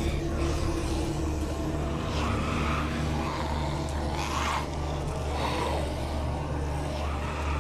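A steady low droning rumble, with a few brief whooshing swells about two, four and five and a half seconds in.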